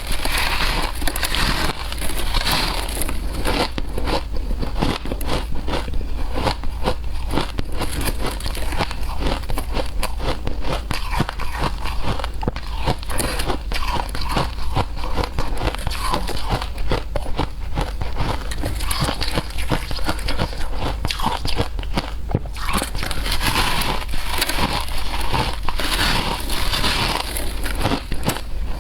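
Shaved ice being chewed and crunched close to the microphone: dense, crisp crackling and crunching with no pause.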